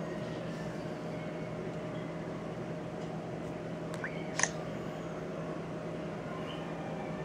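A single short click-beep from a GPS navigator's touchscreen key sound about four seconds in, as an on-screen menu button is tapped, preceded by a brief rising chirp. Under it runs a steady hum with hiss.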